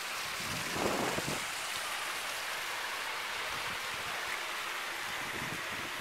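Landscaped boulder waterfall spilling into a pool, a steady rush of falling water that swells briefly about a second in.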